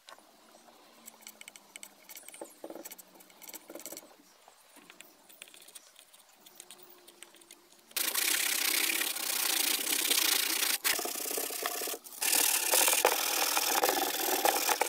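Faint scraping of a small blade spreading wood filler into a wooden slat, then about eight seconds in, loud rasping of hand sanding with 100-grit sandpaper over the trunk's cracked covering, in continuous strokes with two short breaks.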